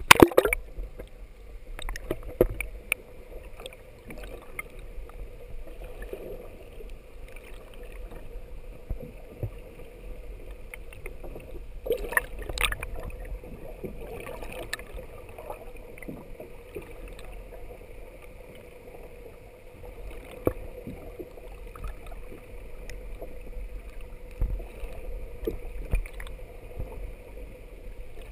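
Muffled water sound heard by a camera submerged in the sea: a steady low rumble with a faint steady hum and scattered sharp knocks and clicks, the loudest knocks right at the start and again about twelve seconds in.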